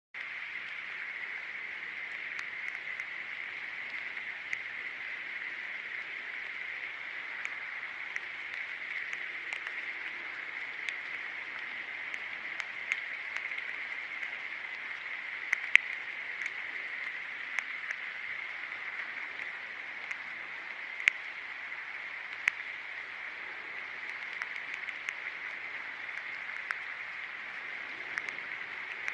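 Steady, even hiss like rain falling on a surface, sprinkled with irregular sharp ticks. A few ticks stand out louder, the loudest a little past the middle.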